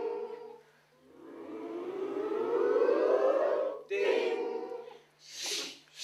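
A group of adults voicing sound effects together: a sung 'ding' at the start, a long rising 'ooh' glide for the lift going up from about a second in, another steady sung note about four seconds in, then two 'shh' hisses near the end.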